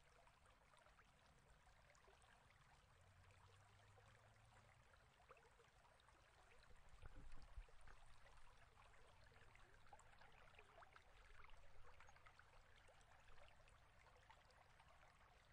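Near silence: a faint crackling hiss with a low rumble underneath, and a soft low bump about halfway through.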